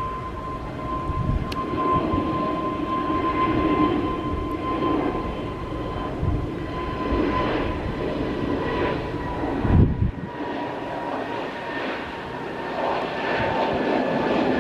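Jet airliner engines running, a steady high whine over a broad rumble, with a brief gust of wind buffeting the microphone about ten seconds in.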